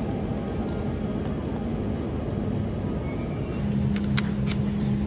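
Steady low rumble of supermarket ambience. A steady low hum comes in past the middle, and two sharp clicks near the end as plastic raspberry punnets are handled.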